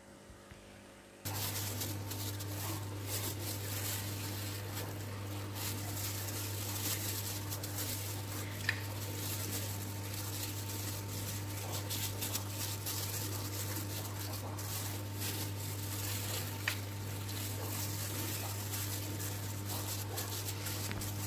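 A steady low electrical hum with a crackling hiss over it, starting suddenly about a second in, and a few light clinks of a metal spoon against a steel bowl.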